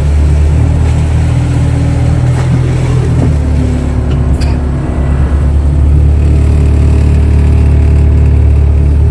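Kato excavator's diesel engine running steadily under work, its note shifting about a third of the way in, with a couple of brief knocks.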